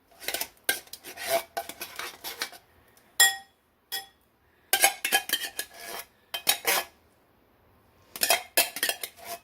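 A spoon scraping and knocking against a metal soup can and a bowl, in bursts of quick clicks and scrapes. Two ringing metallic clinks come about three and four seconds in.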